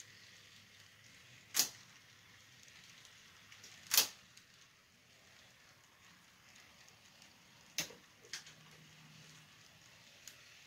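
Model railroad freight cars rolling slowly along the track, with a few sharp clicks from their wheels: two loud ones a couple of seconds apart, then a quicker pair near the end, over a faint steady hiss.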